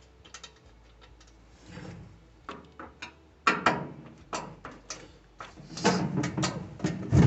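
Clicks and knocks from handling a washer's lid switch assembly and its wires against the machine's cabinet, some taps sharper than others, ending in a loud thud near the end that rings on and fades.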